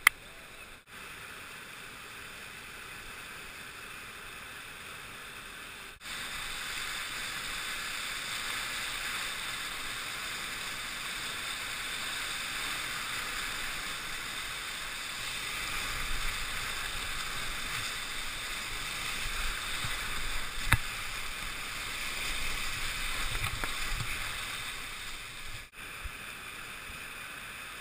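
Rushing river water around a kayak: a steady, even hiss of whitewater, with a single sharp knock about two-thirds of the way through.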